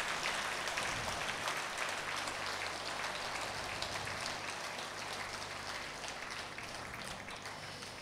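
Audience applauding, the clapping slowly dying away toward the end.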